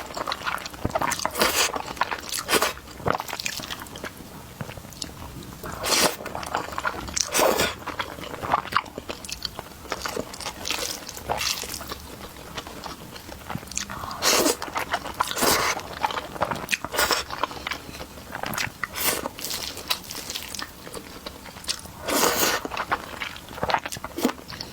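Close-miked person eating minced pork with glass noodles: irregular wet biting and chewing mouthfuls, some short, some drawn out, about one every second or two.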